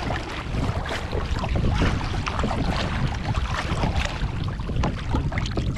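Double-bladed kayak paddle strokes splashing and dripping in the sea, water lapping at the hull, over heavy wind rumble on the microphone.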